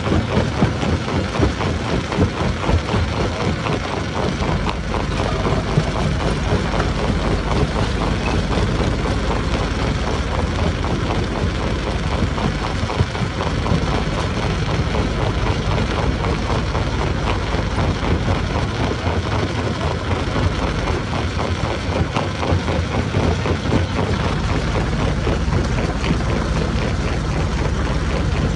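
Stone crusher running: steady, loud, continuous machinery noise with a dense, rough grinding texture.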